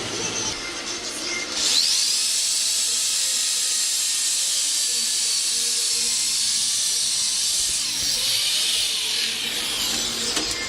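A power tool starts up about two seconds in and runs steadily with a loud, high-pitched hiss while working metal.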